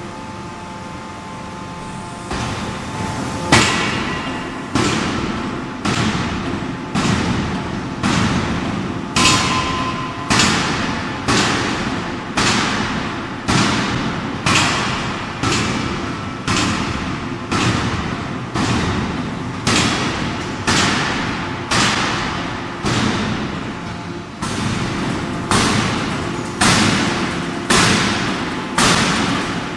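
15-ton bridge-type free forging hammer striking a red-hot billet: a run of heavy, evenly spaced blows about one a second, each a thud with a short ringing tail. A steady machine hum sounds alone before the blows begin a few seconds in.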